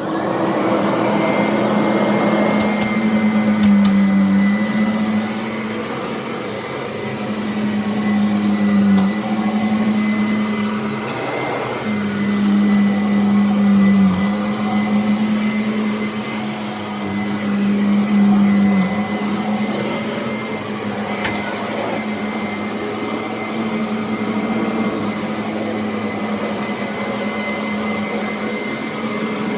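Customized Kirby Avalir upright vacuum cleaner, with a 10-bladed metal fan and G6 metal housing, running at full speed. It gives a steady motor hum with a thin high whine, and its pitch dips briefly every four to five seconds.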